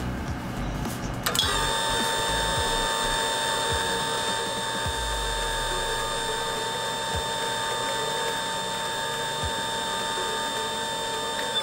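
Kawata Super Mixer 'Piccolo' high-speed mixer's motor and agitator blades switching on about a second in, then running with a steady high whine, spinning empty in the open stainless bowl on a 10-second timed run.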